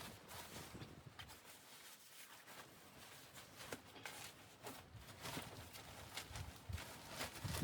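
Faint, irregular crunches, clicks and soft thuds with no steady rhythm, like handling or movement in a quiet camp.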